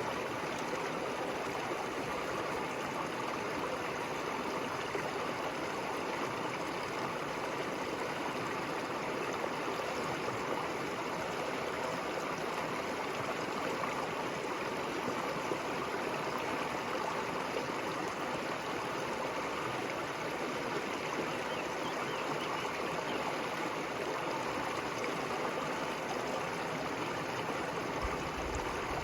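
River water flowing steadily, an even rushing and gurgling with no change in level. A brief low rumble comes near the end.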